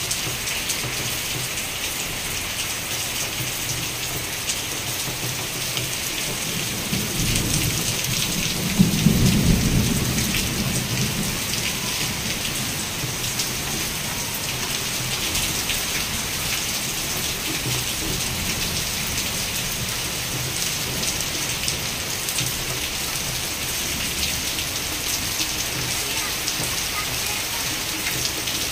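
Heavy rain pouring down in a steady hiss. A low rumble of thunder swells about a quarter of the way through and dies away a few seconds later.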